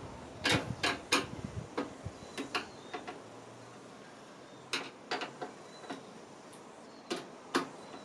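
Irregular sharp metallic clicks and taps as screws are done up in a PC case with a screwdriver, coming in small clusters with short pauses between.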